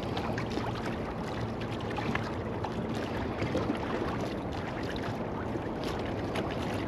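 Water lapping against a kayak hull and a concrete wall: a steady wash with small scattered slaps.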